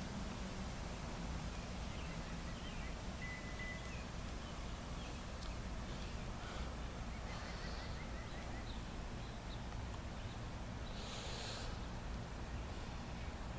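Quiet outdoor ambience: a steady low rumble with faint, scattered bird chirps and one short thin whistle. A brief rustling hiss comes about eleven seconds in.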